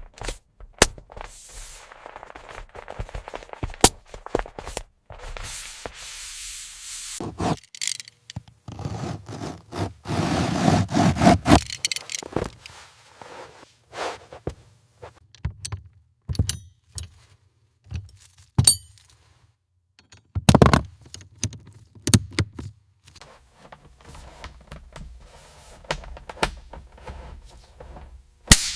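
Irregular workshop hand-work noise: scraping, knocks and sharp clicks. A louder, denser stretch of scraping comes about ten seconds in, and a sharp knock near the end.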